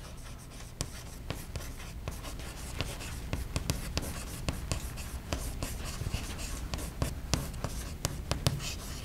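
Chalk writing on a blackboard: a quick run of taps and scratches as words are written out.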